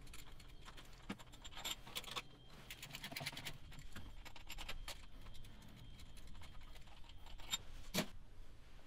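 Faint metallic clicking and scraping of a socket on an extension bar as loosened cylinder head bolts are spun out by hand, with one sharper click near the end.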